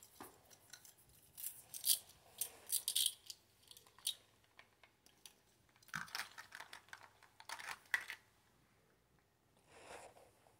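Plastic toys being handled: building blocks and a toy saw give light clicks and clatters in short clusters, busiest about two to four seconds in and again around six to eight seconds in.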